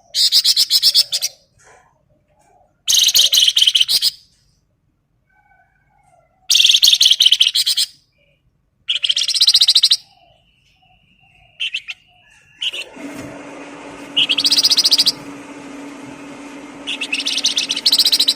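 A songbird singing in short bursts of very rapid, high-pitched trilled notes, each burst about a second long, about six times with pauses between. Around two-thirds of the way through, a steady low hum and hiss comes in under the song.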